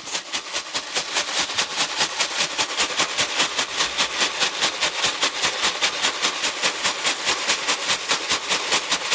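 Chickens pecking hard and fast at a container of mealworms to knock the worms out: a rapid run of sharp taps, about five or six a second.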